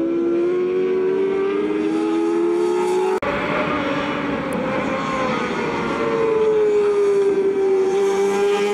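600 cc four-stroke racing motorcycle engines running hard through a corner. One bike's engine rises steadily in pitch as it accelerates; about three seconds in, an abrupt cut brings several bikes together, their engine note falling and then holding steady as they go through the turn.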